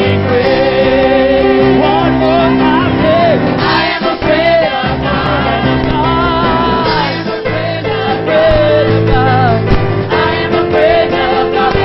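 Gospel praise team singing with live band accompaniment, sustained held notes over keyboard and bass.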